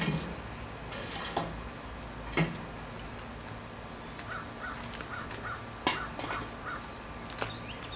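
Lit charcoal briquettes clatter as they are poured from a chimney starter into a Lodge cast-iron hibachi grill, followed by a few sharp knocks. Midway, a crow caws about six times in quick, evenly spaced succession.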